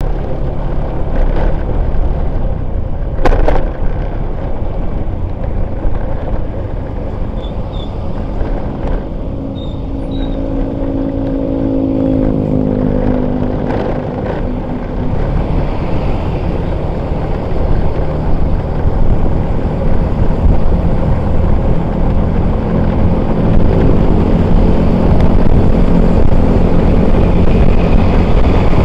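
Steady low rumble of motorcycle traffic heard from a riding motorcycle, with one engine's pitch rising as it speeds up between about ten and fourteen seconds in. A single sharp knock about three seconds in.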